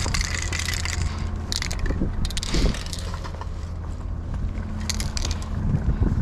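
Footsteps crunching on packed snow, with a few short, sharper crunches and rustles over a steady low rumble.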